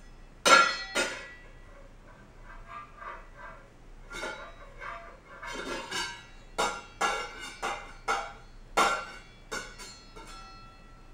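A metal pot lid banged and tapped against a vinyl kitchen floor by a baby, giving about a dozen uneven clangs that each ring briefly. The two hardest clangs come about half a second in and near the end.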